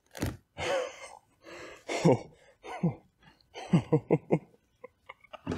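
A man's excited, breathless gasps and wordless cries that fall in pitch, with a quick run of short voiced pulses about four seconds in, in a rush of adrenaline.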